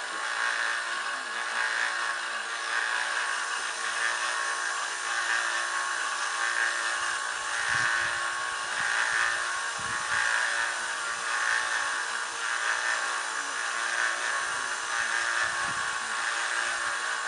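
Small electric belt grinder running steadily, its 240-grit abrasive belt grinding the edge bevel of a steel longsword as the blade is worked back and forth across it at a fixed angle.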